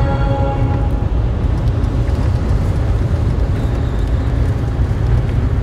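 A loud, steady low rumble, with the last sustained notes of music dying away about a second in.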